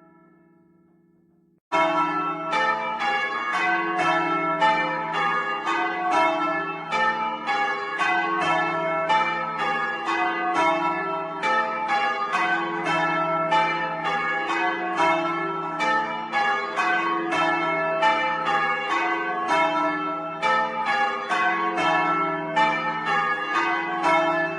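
A ring of four heavy church bells swung full circle for change ringing, heard close up in the belfry: a brisk, even run of strikes, about three a second, over the bells' sustained hum. It begins abruptly about two seconds in, after a faint fading hum, and starts to die away at the very end.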